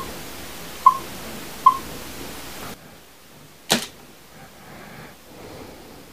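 Canon DSLR beeping three times in quick succession as touchscreen menu settings are tapped, then one sharp mechanical clack as the camera switches into live view and its reflex mirror flips up.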